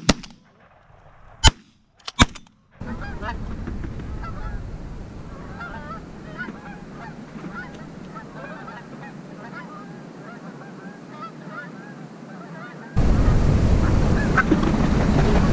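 Two shotgun shots about half a second apart near the start, then a flock of Canada geese honking, many short overlapping honks. A louder rumbling noise comes in near the end.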